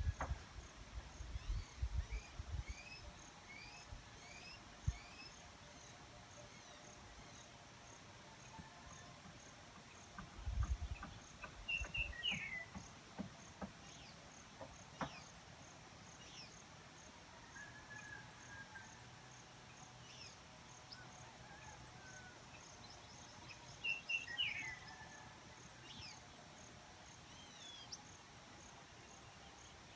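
Faint outdoor ambience of an insect chirping in an even pulse, with scattered short bird calls: a run of falling whistled notes in the first few seconds and brighter calls about twelve and twenty-four seconds in. Low rumbles sound on the microphone at the start and again around ten seconds in.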